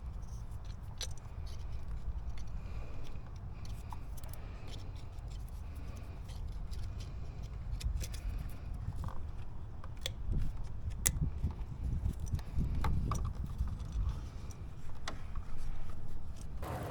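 Scattered light clicks, ticks and scrapes of parts and clips being handled, over a low steady rumble, getting busier about ten seconds in.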